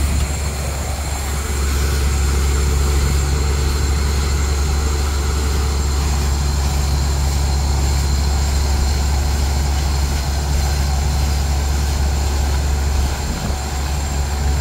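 Truck-mounted borewell drilling rig running: its engine and air compressor give a steady, loud deep hum over a broad hiss, with a slight dip in level about a second in.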